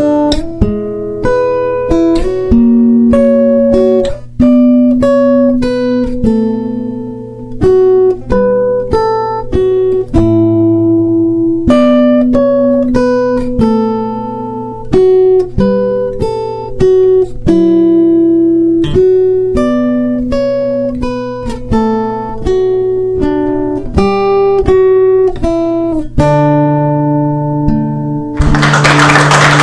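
Solo acoustic guitar played as a melody of single plucked notes and chords, note after note in a steady, unhurried line. Near the end a low chord is held while a loud, even rush of noise comes in.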